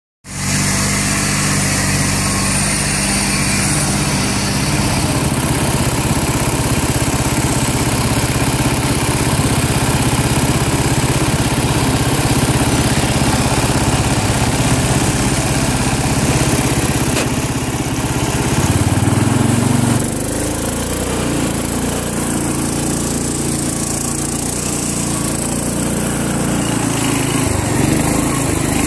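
Small garden tractor engine running steadily under load while driving through mud. The engine note swells briefly about two-thirds of the way through, then eases off.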